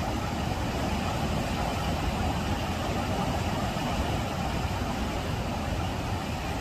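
Maligne River rapids rushing over limestone boulders and ledges: a steady, unbroken noise of white water.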